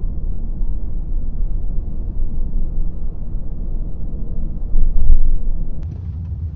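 Low rumble of road and engine noise inside a moving vehicle's cabin, swelling about five seconds in, then dropping after a click near the end.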